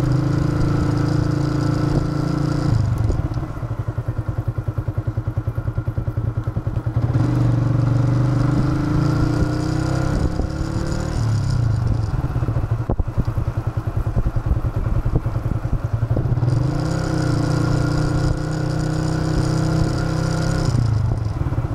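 Yamaha FZ150i single-cylinder engine on the move, alternating between pulling on the throttle and easing off. It drops about three seconds in, climbs in pitch again from about seven seconds, eases off around twelve seconds, and pulls again from about seventeen seconds until it backs off near the end.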